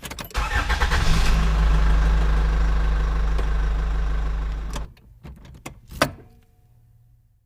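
A car engine starts and runs steadily for about four seconds, then the sound cuts off abruptly, followed by a few light knocks.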